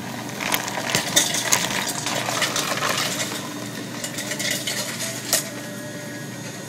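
Ice rattling into a cup at a soda fountain dispenser: a dense run of clinks that thins out after about three seconds.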